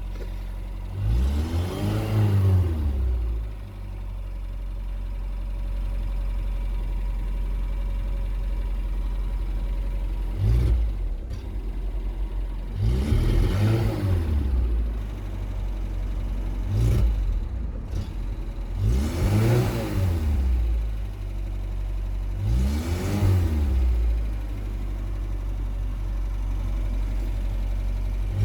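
Talbot Express van's petrol engine idling cold and being revved briefly about six times, each rev rising and falling back to idle. The engine has a misfire when cold.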